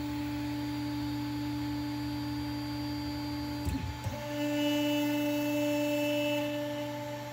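Stepper motors of a Monoprice MP10 Mini 3D printer whining steadily as the print head travels sideways, then, after a brief click just under four seconds in, a louder, higher whine as the bed moves: the printer homing its axes at the start of a print.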